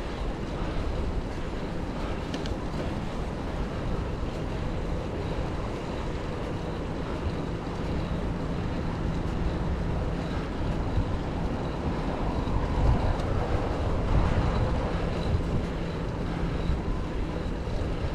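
Wind rushing over the microphone with a low rumble from a bicycle in motion. The sound is steady, briefly a little louder about two-thirds of the way through.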